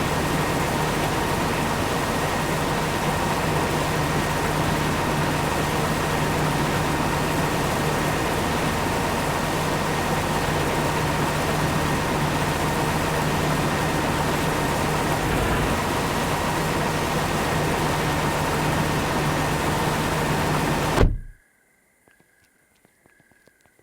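Corn harvesting machinery running steadily: a loud, even mechanical noise with a constant hum and whine that cuts off abruptly near the end, leaving near silence with faint ticks.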